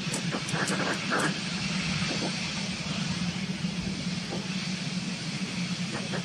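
Twin Rolls-Royce Trent 892 turbofans of a Boeing 777-200ER at takeoff thrust as the jet climbs out: a steady, deep jet rumble with a hiss above it, and a few short crackles in the first second or so.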